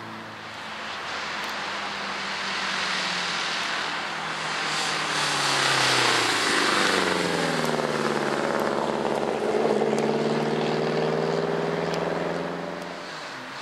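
Lancia Delta Integrale rally car's turbocharged four-cylinder engine driven hard on a special stage, its pitch falling and climbing again through gear changes, loudest around six and ten seconds in, with tyre and gravel noise underneath.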